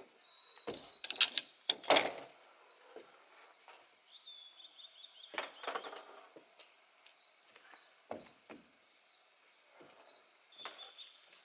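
Camping gear being handled and packed away: scattered knocks, clicks and rustles, loudest about one to two seconds in, with a brief high squeak three times.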